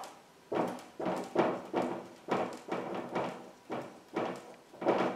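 Dry-erase marker squeaking across a whiteboard in about ten short strokes, roughly two a second, as a box is drawn and words are written.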